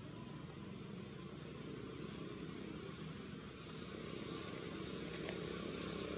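A steady engine drone, like a motor vehicle running out of sight, slowly growing louder toward the end.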